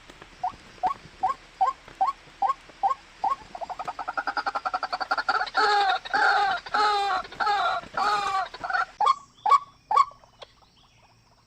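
Small bird calling: a run of short, falling chirps about two or three a second, breaking into a fast trill, then louder, harsher calls about two a second, ending in sharp chirps.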